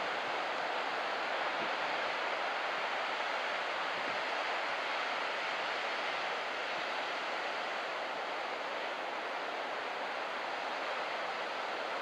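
Steady noise of surf breaking on a beach: an even hiss with no separate crashes standing out.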